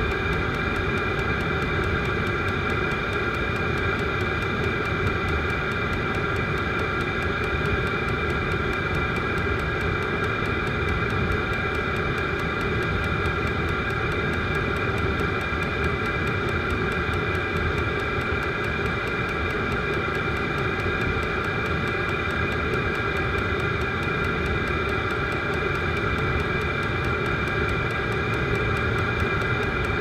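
Vevor diesel air heater running steadily. The blower fan gives an even whine made of several steady tones, over a low rumble.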